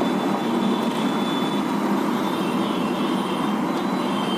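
Steady background noise, a constant even whoosh with a faint high tone and no distinct events.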